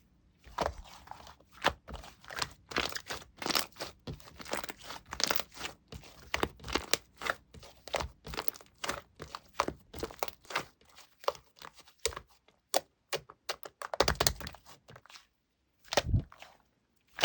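Hands playing with slime: squishing, poking and pressing it in a dense run of crackles, pops and clicks, with two brief pauses near the end.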